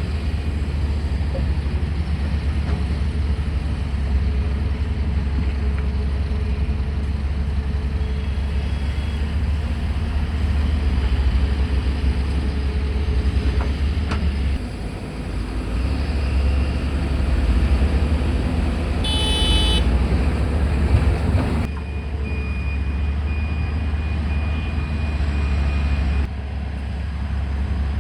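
Tata Hitachi hydraulic excavator's diesel engine running steadily under working load, with its note dipping briefly near the middle. A vehicle horn toots once about two-thirds of the way in. Soon after, faint reversing beeps start.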